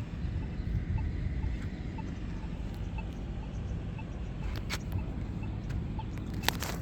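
Polara iN3 accessible pedestrian push button ticking its locator tone: short, evenly spaced beeps about twice a second over a low outdoor rumble. A few sharp clicks come near the end.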